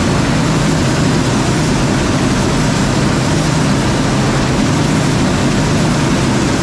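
Steady running of heavy machinery: a constant low hum under a dense hiss, unchanging in level.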